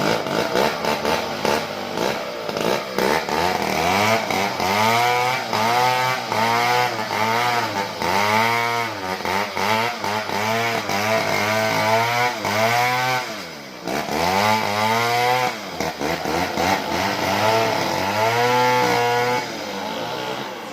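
Small chainsaw running under load while ripping wood lengthwise, its engine pitch rising and falling over and over, about once a second, as the chain bites into the log. The engine dips briefly about fourteen seconds in, then picks up again and eases off near the end.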